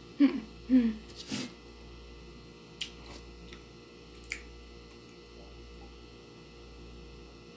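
Two short hummed vocal sounds from a woman in the first second. Then a few faint clicks and swallows as she drinks water from a glass mug, over a low steady room hum.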